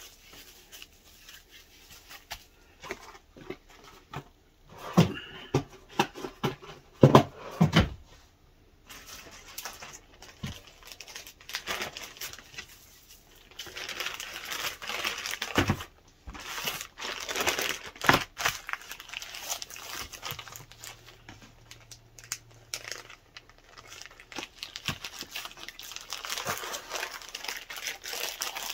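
Plastic food packaging crinkling and rustling as it is handled, with a few sharp knocks about five to eight seconds in.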